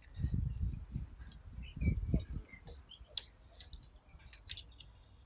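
Small metallic clicks and clinks of a folding hex key set while its key turns the brass service valve stem on a split-system outdoor unit, opening the valve to release refrigerant into the line set. Two low muffled rubbing rumbles early on, and a sharp click just after the middle.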